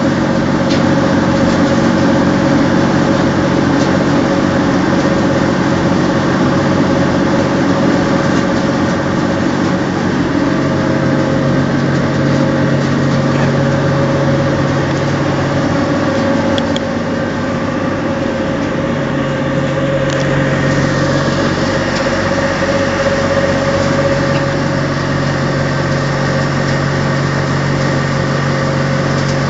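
Sawdust charcoal briquette-making machinery, a screw briquette press and a sawdust dryer, running with a continuous loud hum and drone. The sound shifts slightly about sixteen seconds in and again about twenty seconds in.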